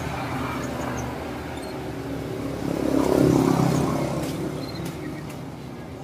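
A road vehicle passing by, swelling to its loudest about three seconds in and then fading away.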